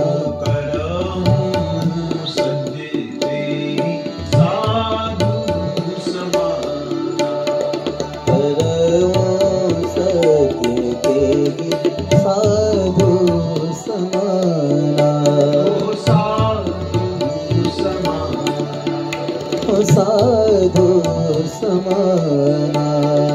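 Devotional bhajan music: tabla keeping a rhythm under a melody of long notes that bend up and down, with singing.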